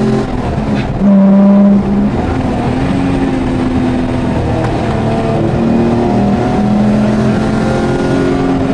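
Race-prepared Jaguar XJ6's straight-six engine pulling hard, heard from inside the cabin. Its pitch holds, then steps up and down several times, and it is loudest about a second in.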